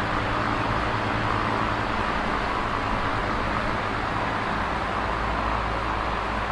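Electric fan running steadily: an even whir of moving air with a low, steady motor hum beneath it.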